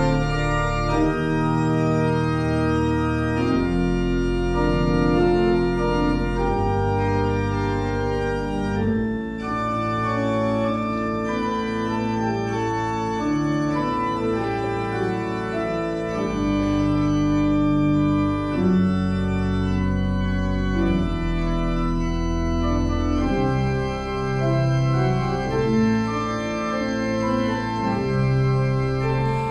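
Organ playing a slow piece in sustained chords, the notes held and changing every second or two.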